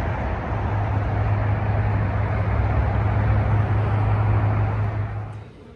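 A running engine: a steady drone with a strong low hum, fading out near the end.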